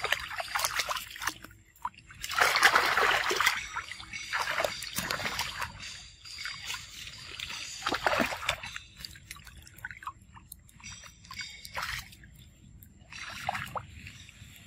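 Macaques splashing and swimming in a shallow concrete pool of water: irregular bursts of splashing, the loudest about two to three seconds in, with quieter sloshing and trickling between.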